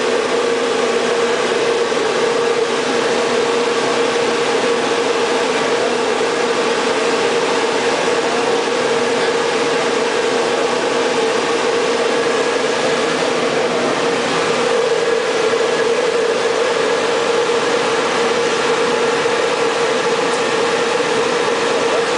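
1959 RCA Model H SSB T-3 shortwave transmitter running after power-up, its cooling blowers making a big, steady noise: a loud even whir with a constant droning tone in it.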